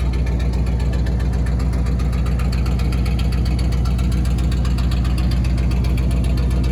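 1946 Ford truck's flathead V8 idling steadily with an even, rapid beat, described as purring like a kitty.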